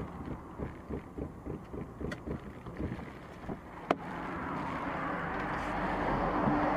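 Car cabin noise while driving in traffic. There is a sharp click about four seconds in, then a rushing noise of air and road that grows steadily louder.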